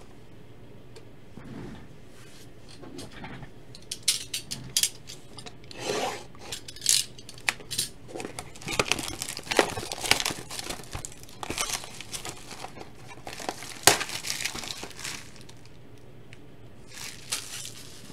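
A cardboard trading-card hobby box being handled and opened by hand: irregular crinkling, tearing and scraping with scattered sharp taps, the loudest a click about 14 seconds in. It goes mostly quiet for the last few seconds apart from a brief rustle near the end.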